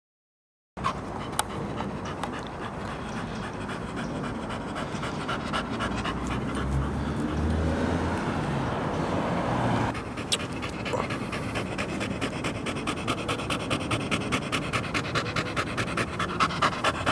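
Blue Staffordshire Bull Terrier panting hard with its mouth open, in fast, even breaths of about four a second. The sound starts after a moment of dead silence.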